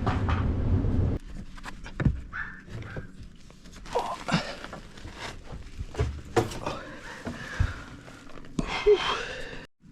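Scattered knocks and bumps of someone moving through a cramped attic crawl space, after a steady low rumble that stops abruptly about a second in.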